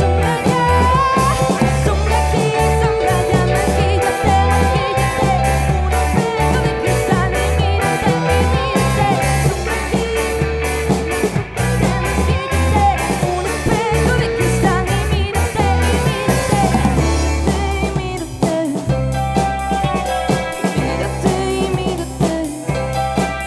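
Live rock band playing: drum kit keeping a steady beat under electric guitars and keyboards, with a man singing lead.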